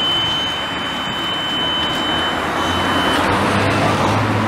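Engine idling under steady outdoor noise, with a thin, steady, high-pitched buzzer tone that cuts off about three seconds in.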